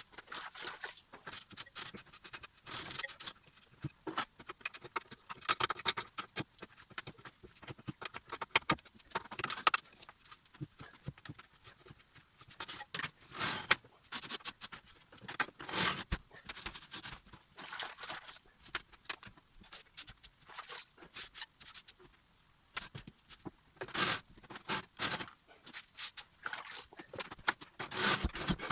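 A wet sponge scrubbing and wiping down a sliding mitre saw: uneven scraping strokes that come and go with short pauses between them.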